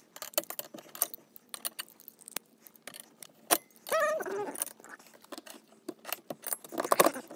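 Metallic clicks and clinks of an open-end wrench working a nut and washers on a bolt through a dump cart's steel frame bracket. There is a short squeak that falls in pitch about four seconds in.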